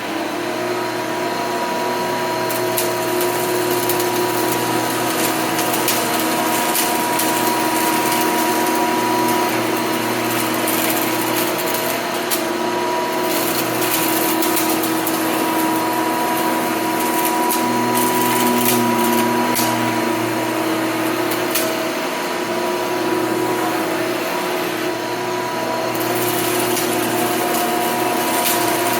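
Hoover upright vacuum cleaner running steadily with a constant motor whine, scattered with short crackling ticks as it picks up debris.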